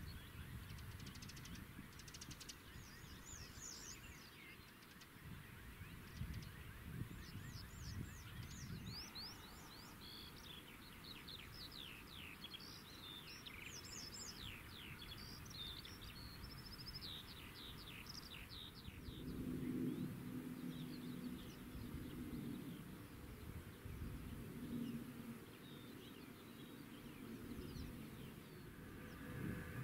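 Small songbirds singing, with many quick downward-sweeping chirps over a faint outdoor background rumble. A low hum with a steady tone swells and fades about two-thirds of the way through.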